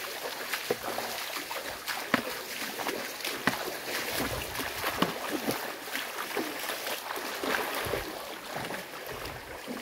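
Footsteps wading through shallow floodwater, an irregular run of small splashes over a steady wash of water noise.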